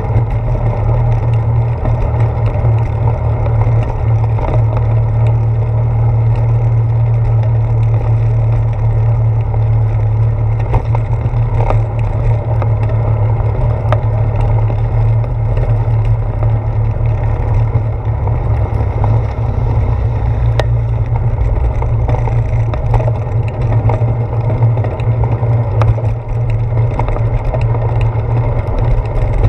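Steady, loud low rumble of a bicycle rolling along, picked up through a handlebar-mounted camera: tyre and handlebar vibration with wind noise, and a few light clicks and knocks scattered through it.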